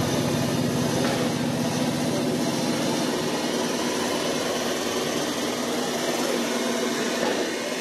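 Loud fighter walkout music played over a hall PA: a dense, buzzing electronic sound that runs steadily. Its low drone thins out about three seconds in.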